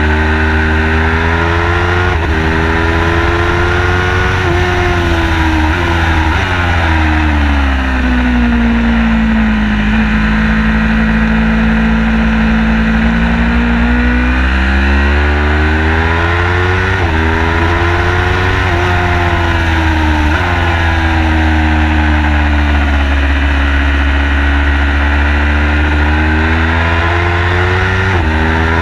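Car engine driven hard on a race track, its pitch climbing under acceleration and breaking sharply at quick gear changes, then falling away and holding low for a few seconds before climbing again. A steady low rumble runs underneath.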